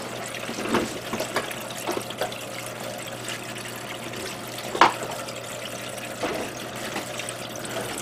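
Water of a Kaizo waterfall spray booth running steadily down its back panel and into the tray, with a steady low hum under it. A few light knocks, the loudest about five seconds in.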